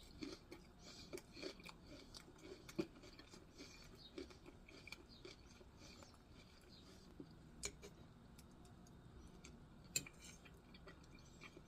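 Faint chewing of barbecue ribs, with soft irregular mouth clicks throughout and a couple of sharper clicks in the second half.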